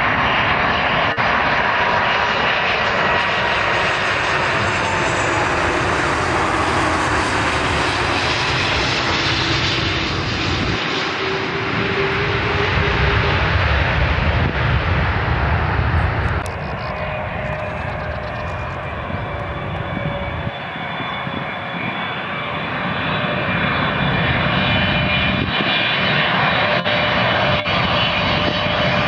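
Jet airliners on landing approach: an Airbus A330's engines running as it passes low overhead, their whine falling in pitch as it goes by. The sound changes abruptly about halfway through, and then a Boeing 777's engines grow louder as it comes in on final.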